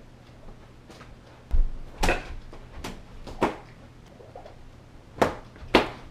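Objects thrown around a room, knocking and thudding as they land: about six sharp, separate hits, with a faint steady low hum underneath.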